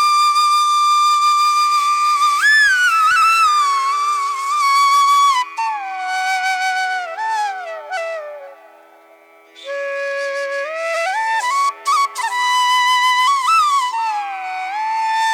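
Background music: a slow Indian-style flute melody over a steady drone, with long held notes and sliding bends. It dips almost to silence about nine seconds in, then picks up again.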